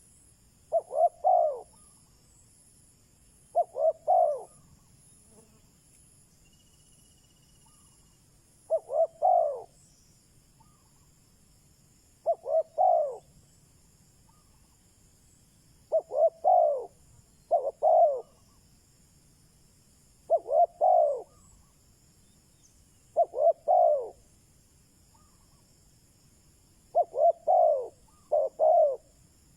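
Spotted dove cooing: short phrases of a few descending notes, about ten of them, repeated every few seconds and sometimes twice in quick succession. This is the decoy bird's call used to provoke and draw in wild doves.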